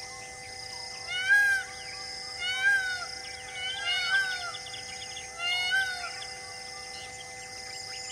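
An animal calling four times, each call a short rise-and-fall about one and a half seconds apart, over a steady droning music bed.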